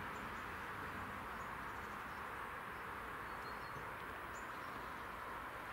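Steady outdoor ambience: an even background hiss with a few faint, short, high chirps, as of small birds.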